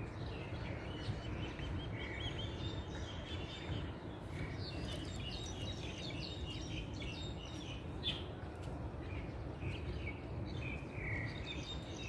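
Bird chirping: a quick run of short, high chirps, busiest in the middle, over a steady low background rumble.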